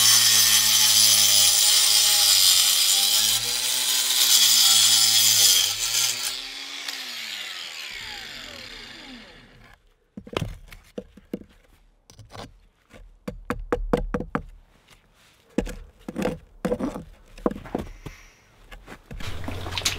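Cordless angle grinder cutting through a brick, its motor pitch dipping under load and recovering several times, then released and winding down over a few seconds. After that, a series of knocks and scrapes as the cut brick is lifted and set against the other bricks.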